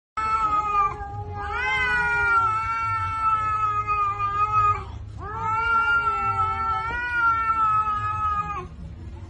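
A cat yowling in two long drawn-out calls, each rising in pitch at the start and then held for about three seconds.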